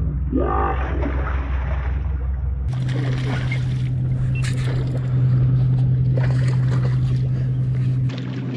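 Boat engine running steadily, with water splashing against the hull.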